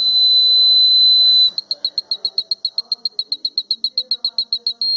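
Electronic buzzer of a fire alarm circuit sounding a steady high-pitched tone, then switching to rapid even beeping of about nine beeps a second, and going back to a steady tone near the end.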